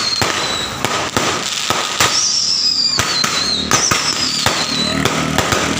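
Fireworks going off: a dense run of sharp bangs and crackling pops, with whistles that slide down in pitch every second or so.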